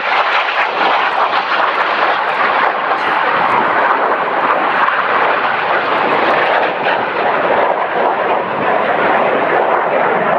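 Loud, steady jet engine noise from BAE Hawk display jets flying past overhead.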